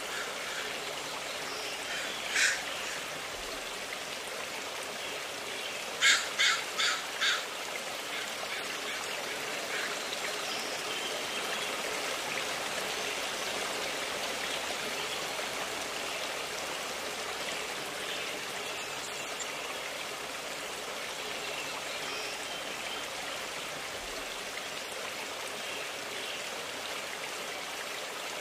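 Rushing stream water, a steady hiss throughout. A bird calls over it: once about two seconds in, then four quick calls in a row about six seconds in.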